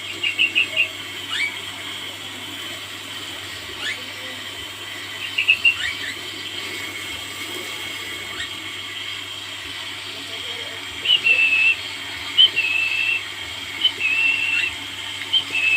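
A caged songbird giving short whistled calls: quick rising sweeps and runs of high, clipped notes, busier in the second half, over a steady hiss of water spraying during its bath.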